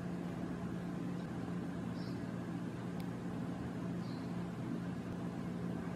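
Steady low hum with a light hiss of background noise, and a faint tick about three seconds in.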